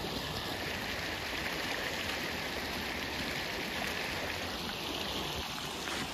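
Shallow creek water rushing steadily over riffles and white water.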